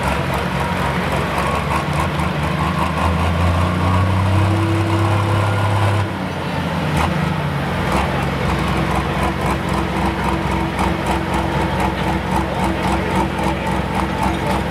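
Super stock pulling tractor's engine running at the starting line while hooked to the sled, loud and steady; its note drops about six seconds in, then holds steady.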